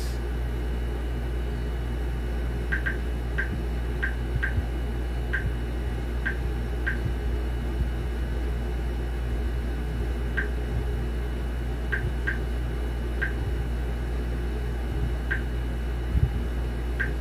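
Short high blips of a Huawei Vision S smart TV's menu navigation sounds, a dozen or so at irregular intervals, some in quick pairs, as the menu is scrolled with the remote. Under them runs a steady low hum.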